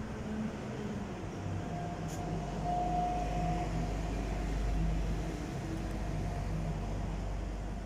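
Street traffic: a motor vehicle passing, its low engine and tyre rumble swelling through the middle and easing near the end, with a brief steady whine about three seconds in.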